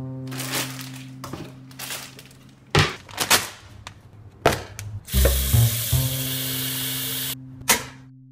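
Low bowed-string music with long held notes, broken by sharp clicks and knocks of handling, and a steady hiss for about two seconds past the middle.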